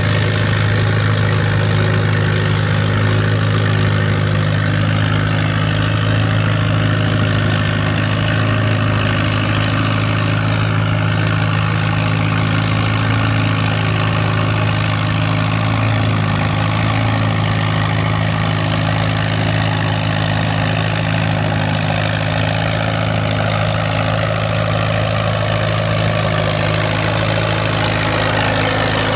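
Antique farm tractor engine running steadily at one constant speed.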